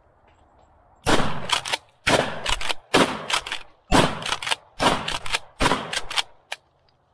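Shotgun firing six rapid shots of 00 buckshot, about one a second, each blast trailed by a short echo. A single light click follows near the end.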